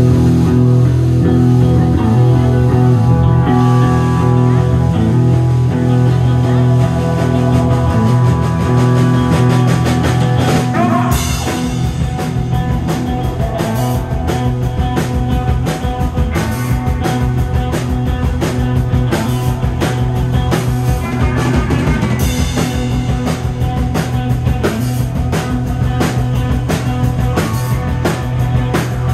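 Psychedelic garage rock played live by a band on electric guitar, bass guitar and keyboard. They hold sustained notes at first; about eleven seconds in the drum kit comes in, and the full band plays on with a steady beat.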